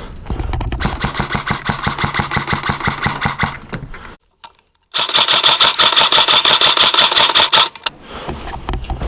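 Airsoft rifle firing on full auto: a long burst of rapid, evenly spaced shots, a brief cut to silence about four seconds in, then a second, louder burst that stops abruptly near the end.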